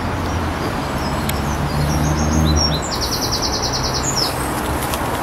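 Steady drone of road traffic. A small songbird chirps, then sings a fast high trill lasting about a second, about three seconds in.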